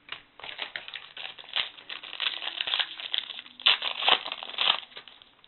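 Foil wrapper of a trading-card pack crinkling and crackling as it is handled and torn open, with a run of irregular crackles that is loudest near the end.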